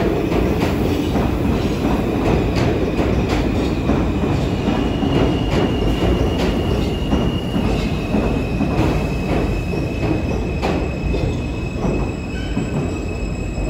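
Subway train running along the track: a steady loud rumble of wheels on rail with repeated sharp clicks over the rail joints. A thin, high-pitched squeal joins in about five seconds in, and the sound eases slightly near the end.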